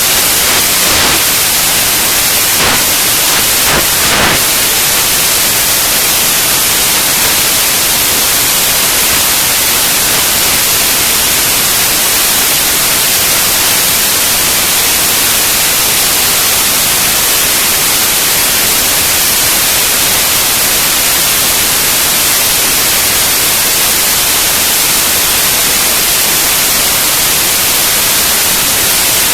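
Loud, steady static-like hiss with no engine or voice heard in it, with a few faint clicks in the first few seconds.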